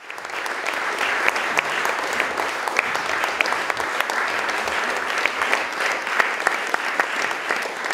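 Audience applauding, many hands clapping steadily; the applause builds within the first second and holds.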